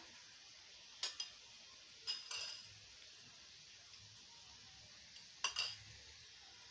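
Faint clinks of kitchen utensils and small containers being handled while salt is taken for the beaten eggs. They come in three brief groups: about a second in, around two seconds, and near five and a half seconds.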